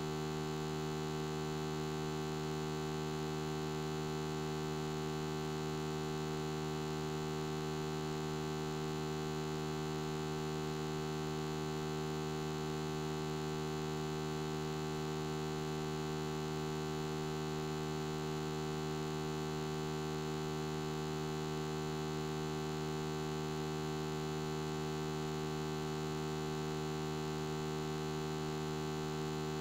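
Steady electrical mains hum, a buzzy drone with many overtones that does not change.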